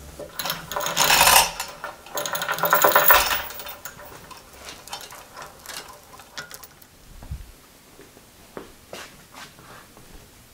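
Metal chain of the drill press's quill counterweight rattling as it is moved, in two loud spells during the first three and a half seconds, then a few faint clicks and knocks from the machine.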